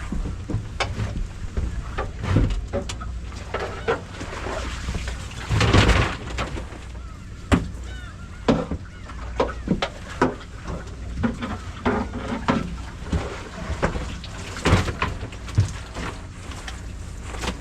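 Irregular knocks and clatter on a fishing boat's deck over the boat's steady low engine hum, with a louder rushing, rattling stretch about six seconds in.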